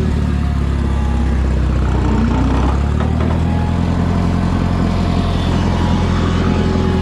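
Minneapolis-Moline U302 Super tractor's four-cylinder engine running steadily, driving the hydraulics of a three-point log splitter.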